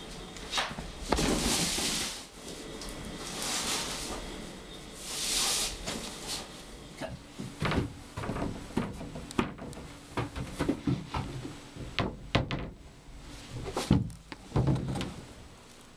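Cupboard doors knocking and rattling in a quick irregular series of clicks and knocks, with a door swinging open near the end. Before that come three breathy, hiss-like noise bursts of about a second each.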